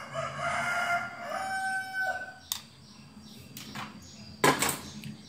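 A rooster crowing once, about two seconds long. Then come a few light clicks and a short, loud clatter about four and a half seconds in.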